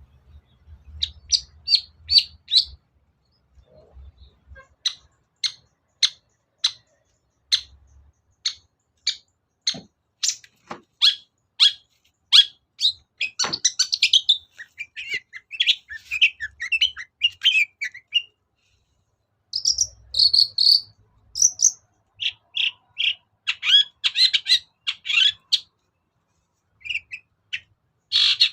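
Long-tailed shrike (cendet) singing: a run of sharp, evenly spaced chirps, about two a second, that breaks into fast scratchy chattering, with pauses of a second or two between phrases.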